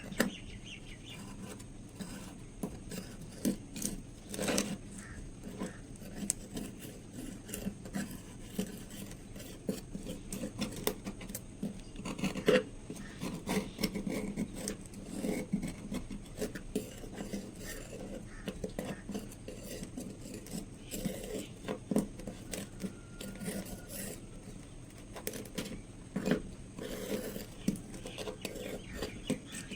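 Irregular scraping, rubbing and clinking of metal being handled and worked by hand on a heavily rusted knife, with a few louder knocks.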